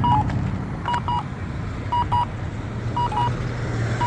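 Accessible pedestrian signal push-button locator tone from a Campbell Guardian Wave unit: a short double beep about once a second. A steady low traffic hum runs underneath.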